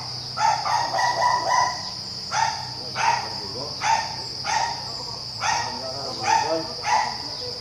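A dog barking repeatedly, roughly once a second, over a steady high-pitched drone of insects.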